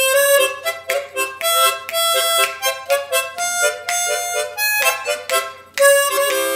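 Harmonica playing a tune: a quick succession of notes, many sounded together as chords.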